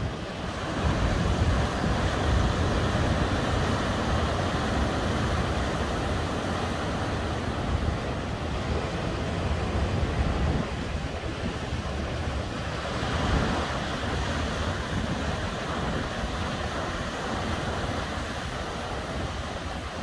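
Ocean surf: waves breaking and washing up the shore in a continuous rush with a deep rumble, swelling louder as a wave breaks about a second in and again about two-thirds of the way through.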